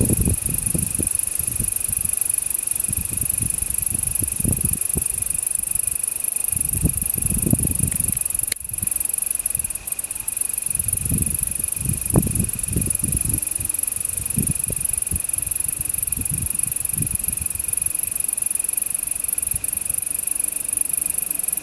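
Yabukiri katydid (Tettigonia orientalis) singing a continuous high-pitched buzz that breaks off only for a moment about eight and a half seconds in, over irregular low rumbles.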